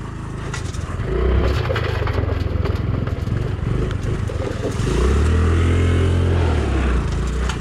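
Honda motorcycle engine running while riding over rough ground, picking up about a second in, then revving up and back down again near the end, with scattered clatter of stones and mud.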